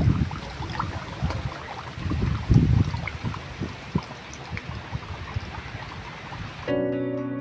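Thin stream of water from a bamboo spout trickling and splashing into a water-filled stone basin (tsukubai), with small drips and gurgles. Near the end, gentle plucked-string music comes in.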